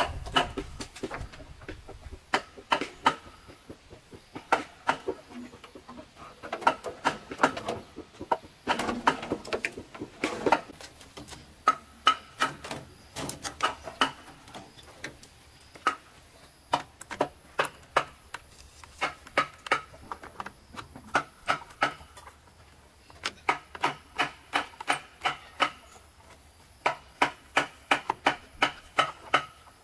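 Repeated sharp blows on wood with a hand tool, coming in bursts of several strikes about three a second with short pauses between, each hit carrying a slight ring.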